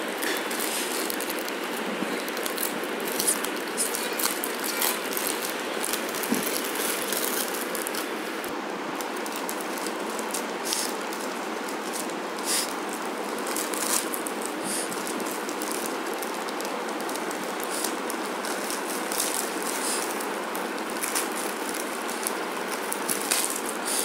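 Plastic courier mailer bag crinkling and rustling in the hands as it is handled and opened, with many short crackles.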